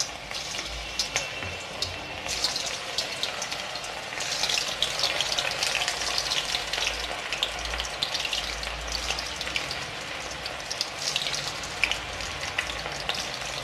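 Batter-coated cauliflower florets deep-frying in hot oil in a steel kadai: a dense sizzle of bubbling oil full of fine crackles, growing louder about four seconds in as more pieces go into the oil.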